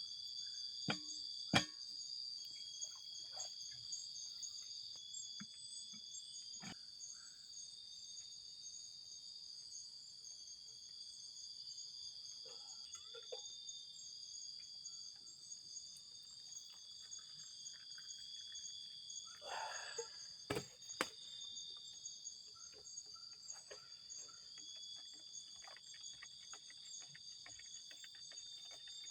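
Steady chorus of night insects: several continuous high trilling bands throughout. A few sharp clicks and a brief rustle stand out, most of them near the start and around two-thirds of the way through.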